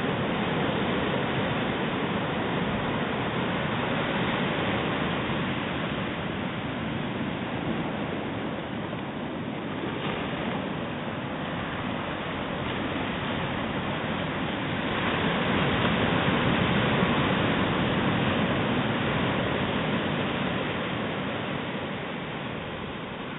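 Surf washing up on a sandy beach: a steady rush of breaking waves and foam, swelling louder about two-thirds of the way through.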